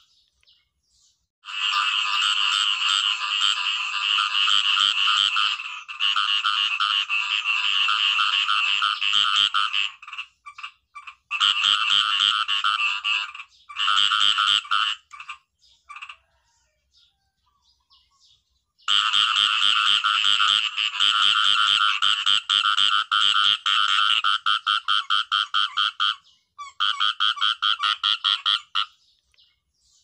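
Khiat i-mo frogs (เขียดอีโม้) calling in long bouts of rapid pulsed croaks, with short gaps between bouts and a pause of about two seconds just past the middle.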